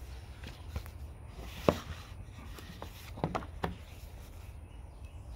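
Pages of a paperback book being turned by hand: soft paper rustling with a few sharp flicks, the loudest about a second and a half in and a quick run of three around three seconds in.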